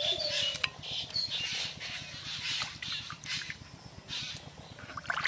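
Raw chicken pieces being washed by hand in a clay bowl of water: irregular splashing and sloshing as the pieces are rubbed and lifted out, with a sharper burst of splashes and clicks near the end. Birds call in the background, most clearly in the first second or so.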